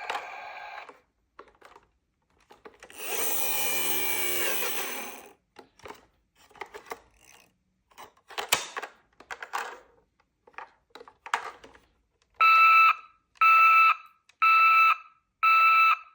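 A toy emergency vehicle's electronic sound unit gives four loud, identical beeps near the end, each about half a second long and about one a second. Before that there is a noisy burst of about two seconds, then scattered small clicks of plastic toys being handled.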